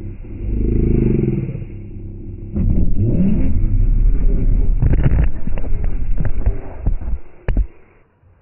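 RC car motor revving, its pitch rising and falling, with the car rattling and clattering on a plastic slide; a few sharp knocks near the end as it tumbles, then the sound cuts off.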